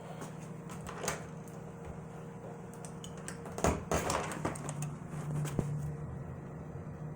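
Low steady drone of a small private propeller plane circling overhead, with sharp clicks and knocks close to the microphone, most of them clustered about three and a half to four and a half seconds in.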